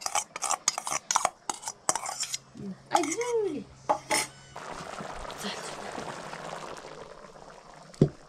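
A metal spoon stirring and knocking against a cooking pot in quick, irregular strikes. About halfway through the knocking stops and a steady hiss from the pot takes over, with one sharp clink near the end.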